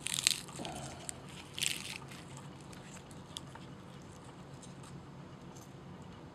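A lily bulb clump being pulled apart by hand: short bursts of crackling and crunching from the fleshy scales and dry roots, at the start and again about a second and a half in, then a few faint clicks.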